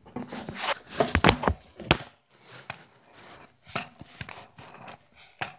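Irregular knocks, taps and rubbing from things being handled close to the microphone, loudest about a second in, quieter after that.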